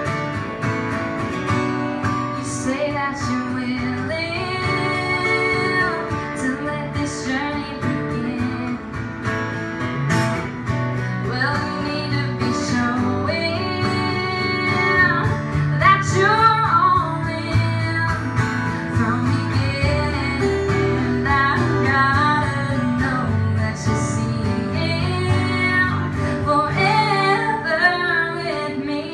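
Live performance of a song: two acoustic guitars strummed and picked together while a woman sings the lead vocal.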